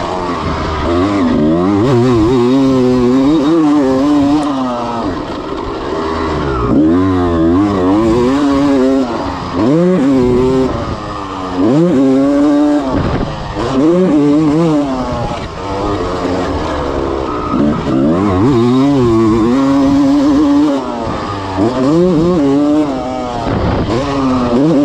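1996 Honda CR250's freshly rebuilt single-cylinder two-stroke engine being ridden hard: it revs up and its pitch drops sharply again and again, every second or two, as the throttle is opened and chopped through shifts and corners.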